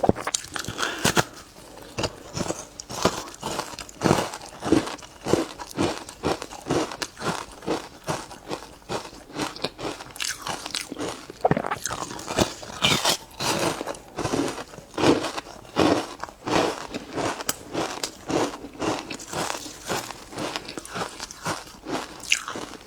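Ice being bitten and chewed close to the microphone: a fast, irregular run of sharp crunches and cracks as the cubes break between the teeth.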